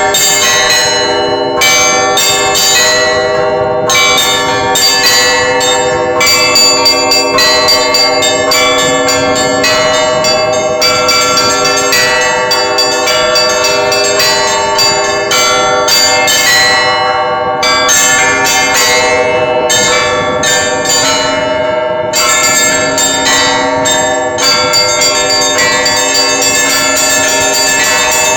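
Russian Orthodox monastery bells being rung: several bells of different pitches struck in quick, overlapping succession, several strikes a second, each ringing on into the next.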